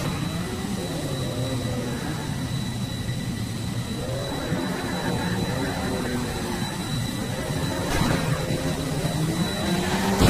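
Jet engine sound effect, its pitch slowly wavering up and down, with a click about eight seconds in and another at the end.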